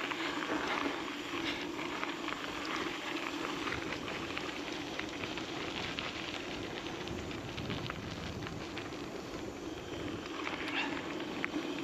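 Gravel bike tyres rolling downhill over a loose, rough gravel and sand trail: a steady crackle of grit and small stones under the tyres, with a low steady hum of the tyres on the ground.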